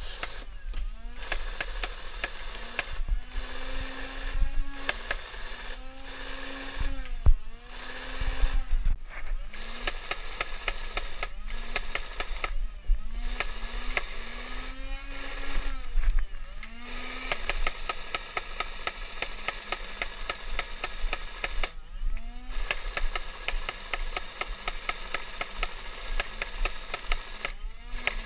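Motorized Nerf ball blaster firing in repeated bursts: its motor whines up in short rising spurts, some held for a second or two, over fast clicking as balls are fed and shot.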